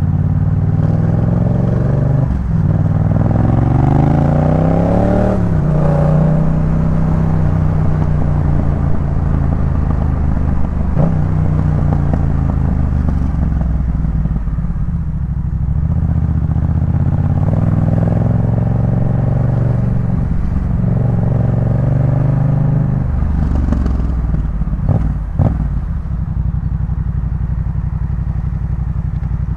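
Yamaha MT-07's parallel-twin engine through a Jeskap K4 full exhaust, riding on the road. The revs climb and drop back several times as it accelerates and shifts gear, with steady running in between, and a couple of sharp clicks near the end.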